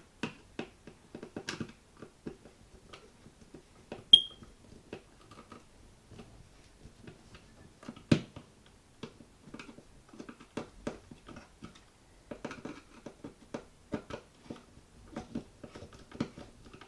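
Screws being driven by hand with a screwdriver through a Nest Protect mounting plate into the ceiling: an irregular run of small clicks, scrapes and creaks, with one brief high squeak about four seconds in and a sharper knock about eight seconds in.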